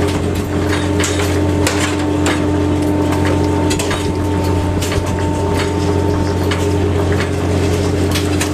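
Fishing boat's engine and deck machinery running with a steady hum, overlaid by irregular sharp knocks and clanks about once or twice a second as the longline and catch come aboard over the rail.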